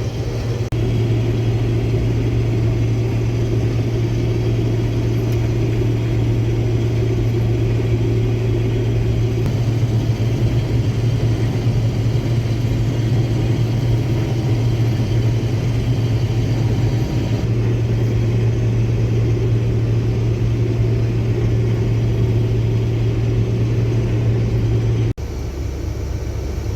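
Case IH Axial-Flow combine running steadily while harvesting soybeans: a constant low drone of engine and machinery. About a second and a half before the end it cuts off abruptly to a quieter, lower hum.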